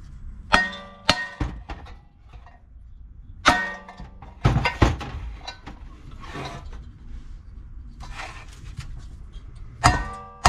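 Hammer blows on the end of a Briggs & Stratton 550EX engine's bent crankshaft, trying to drive it out of the block: sharp metal clangs that ring briefly, in clusters of two or three with pauses and lighter knocks between.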